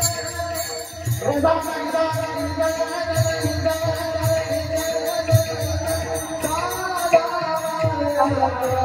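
Man singing a Marathi devotional abhang in a high voice, holding one long note for several seconds before the melody moves near the end. Metallic jingling percussion keeps a steady beat with low drum strokes underneath.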